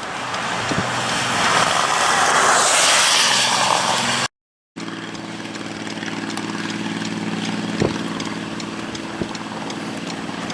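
Loud rushing wind-and-rain noise that swells and then eases. After an abrupt cut, a steady low engine hum sits under fainter rain noise, with a few clicks.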